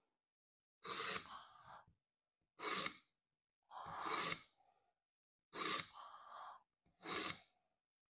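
A steel knife blade drawn through a Smith's mini pocket sharpener five times, each pull a short scrape of steel on the sharpening slot, spaced one to two seconds apart.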